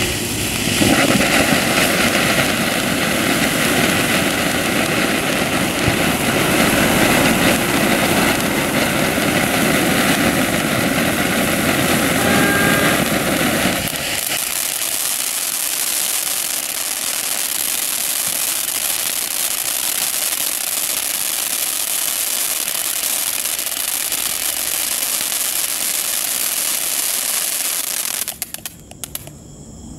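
A 200-gram cone fountain firework spraying sparks with a loud, steady rushing hiss. About halfway through the deep part of the rush drops away, leaving a thinner, higher hiss, and near the end it dies down into a few scattered pops and crackles.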